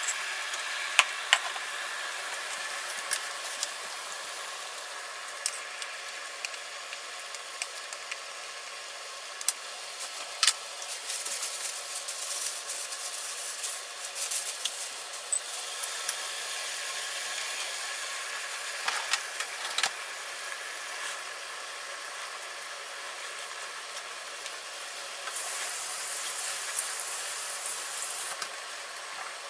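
Home cooking in a kitchen: a steady hiss of food cooking on the stove, with scattered clicks and knocks of utensils. A louder, brighter rush of hiss lasts about three seconds near the end.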